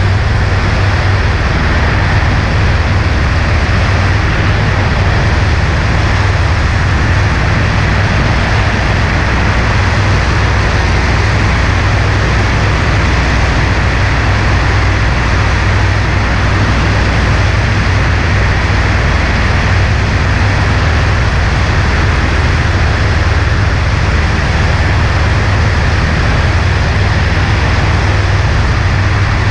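Cessna 140A in flight: a steady engine and propeller drone under the rush of airflow over the wing, unchanging throughout.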